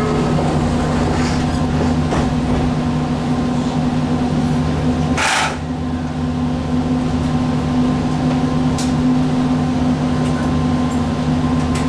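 Steady electrical hum of a JR Kyushu 817 series electric train's onboard equipment, heard from inside the driver's cab, with a short hiss of released air about five seconds in, just before the train starts to pull away.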